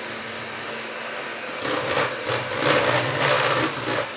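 Electric hand mixer running, its beaters in thick butter-and-egg cake batter in a stainless steel bowl. About one and a half seconds in, the sound turns louder and rougher as the beaters churn through the batter with the flour being mixed in.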